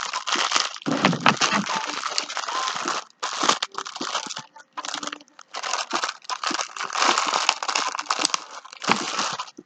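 Plastic sandwich wrapping crinkling and crumpling in irregular bursts, with short pauses, as hands pull and tear at tightly taped plastic packaging.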